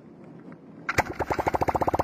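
Motorcycle engine with a wooden propeller, started by swinging the propeller by hand: a little under a second in it fires with a sharp pop and catches, running in a rapid chug that quickens and grows louder.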